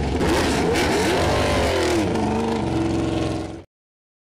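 Laverda V6 racing motorcycle's 90-degree V6 engine being revved at a standstill, its pitch rising and falling with repeated throttle blips before holding a steadier note. The sound cuts off suddenly about three and a half seconds in.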